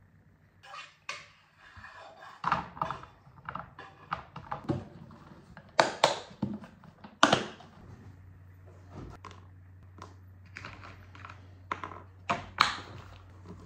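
Irregular clicks, knocks and clattering of objects being handled in a small room, with a steady low hum starting about eight seconds in.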